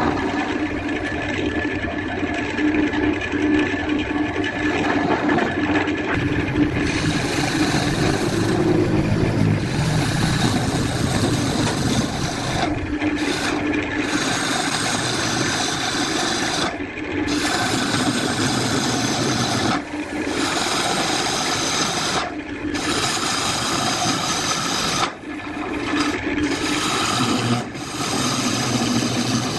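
Wood lathe running while a tool or abrasive rasps against the spinning wooden workpiece: a steady scraping with a hum under it, broken by short dips every few seconds.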